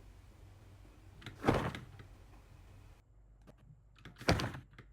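Two fabric whoosh sound effects of a sleeve being flung, each a short swish about half a second long, one about a second and a half in and one near the end.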